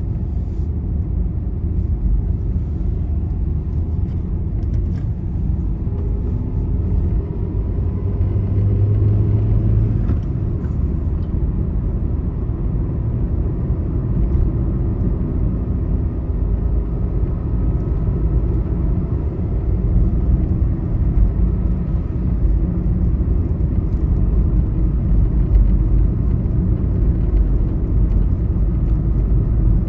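Steady low rumble of a vehicle travelling on a highway: road and engine noise. A low hum stands out briefly about eight seconds in.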